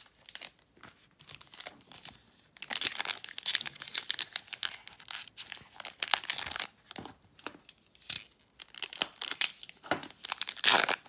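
Foil wrapper of a Donruss Optic basketball card pack being torn open and crinkled by hand. Short bursts of tearing and crinkling with brief pauses, starting after a quieter first couple of seconds and loudest near the end.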